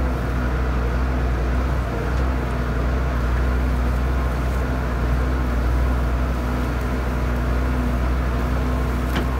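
Tractor-driven Cloverdale 500 T vertical feed mixer running steadily, its auger working through hay and a frozen, high-moisture corn bale: a steady low drone with a faint hum on top that comes and goes.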